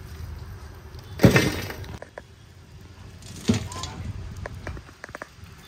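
A metal ladle scraping up glowing charcoal embers and tipping them onto the metal lid of a large biryani pot to put it on dum (heat from above): two loud scrapes and clatters, about a second in and again after three seconds, then a few light clinks of embers near the end.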